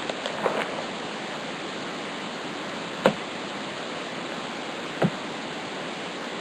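Steady low hiss with a few soft clicks as a Bowman Chrome baseball card is handled in the fingers, the clearest about three seconds and five seconds in.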